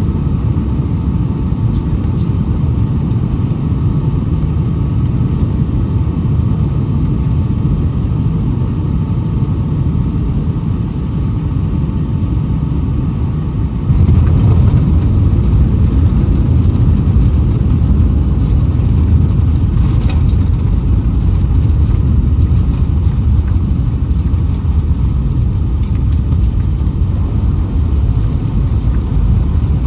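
Cabin noise inside a Boeing 757-232 from a window seat: a steady low rumble of engines and airflow, with a faint whine near the start, turning suddenly louder about fourteen seconds in and staying there.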